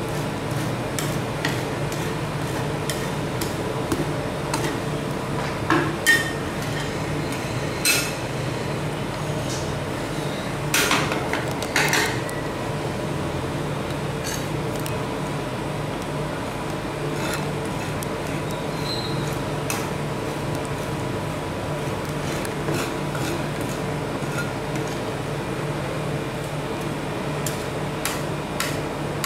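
Metal spatulas scraping and clacking on a frozen steel cold plate as rolled ice cream base is spread thin, with sharp metal knocks scattered through and a cluster of louder ones about six to twelve seconds in. A steady machine hum runs underneath.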